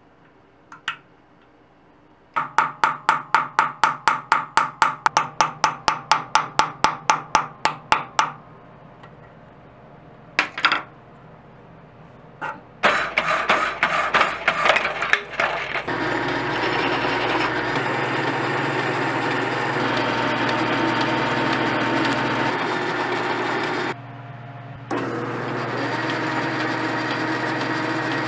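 Metalworking shop sounds. First a run of sharp strikes, about four a second. Then a saw cutting through a rusty steel tube in rapid strokes, and then a steady machine running, with a metal lathe drilling into a spinning metal part near the end.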